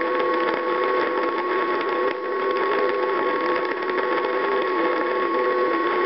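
National NC-57M tube receiver's speaker playing longwave nondirectional beacon signals: several steady beat-note whistles at different pitches over a constant hiss of static, one whistle wavering slightly in pitch. Each whistle is a beacon carrier found by tuning across the band.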